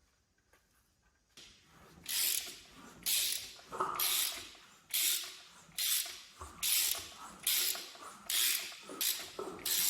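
Ratchet wrench clicking in repeated strokes, about one a second, starting after a second or so, as the crankshaft of a BMW V12 with its spark plugs out is turned over by hand; the engine turns freely, not seized.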